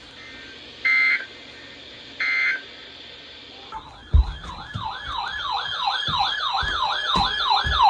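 Short bursts of Emergency Alert System data tones (the end-of-message code) sound twice in the first few seconds. About four seconds in, a fast yelp siren starts, sweeping up and down about three times a second, with a couple of low thumps.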